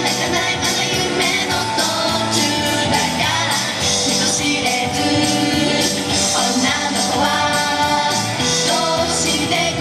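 A woman singing an upbeat pop song live into a microphone over pop backing music with a steady beat.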